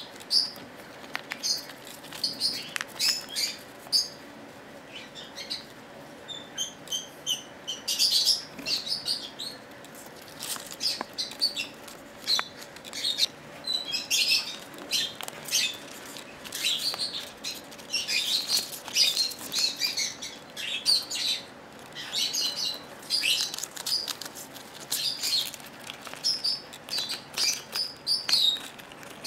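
Peach-faced lovebird biting and tearing paper into strips with its beak: many short, crisp crinkling tears in quick irregular runs, with brief high chirps mixed in.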